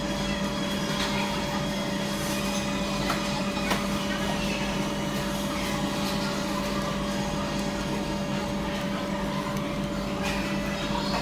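Steady motor hum, like a fan or vacuum pump running, with a couple of faint small clicks.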